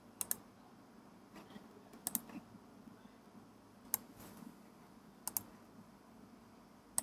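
A few scattered clicks of computer keys, several coming in quick pairs, over faint room tone.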